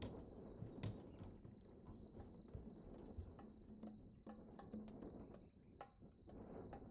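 Faint, steady chirring of crickets in the meadow grass, with a few scattered light knocks and thuds, the loudest about a second in, from a horse's hooves stepping on the trailer ramp and floor.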